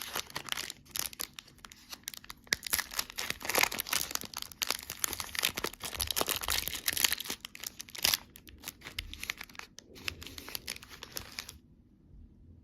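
Candy packaging being torn open and crinkled: a dense run of crackles and tearing, with a few soft low thuds, that stops suddenly near the end.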